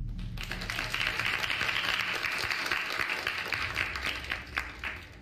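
A group of people applauding, many quick claps blending together, dying away near the end. A deep boom from the show's music fades out under the first second.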